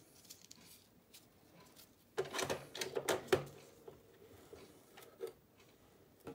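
A roll of satin label material being handled and loaded into a Zebra ZD220 label printer's plastic media compartment. There are light clicks, then about two seconds in a burst of rattling, scraping and clicks lasting just over a second as the roll is seated, then soft taps and rustles as the end is fed through the media guides.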